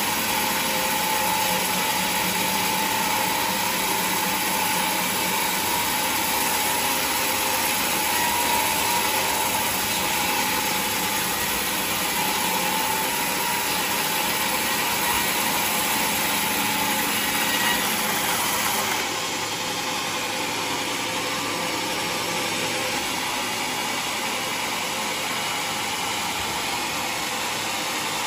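Sawmill machinery running steadily, a dense mechanical noise with a faint steady hum; it drops slightly in level and changes character about two-thirds of the way through.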